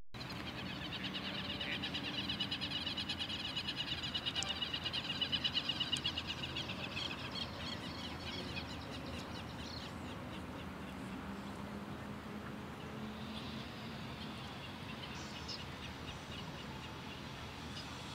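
A rapid, high-pitched pulsing trill from a small animal, swelling over the first several seconds and fading out about ten seconds in, over a low steady hum. A few faint high chirps follow later.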